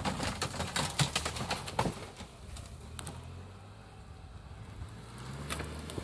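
Suzuki Jimny 4x4's engine running at low revs as it crawls over rough rocky ground, a steady low drone. Sharp clicks and crackling over the first two seconds, with a couple more near the end.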